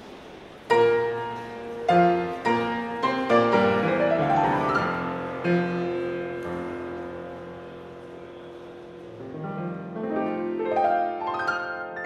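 Classical piano music starting under a second in with loud struck chords, then quick rising runs up the keyboard in the middle and again near the end.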